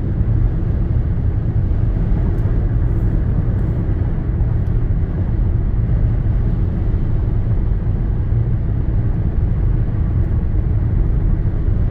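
Steady low road and engine rumble inside a moving car's cabin, unchanging throughout.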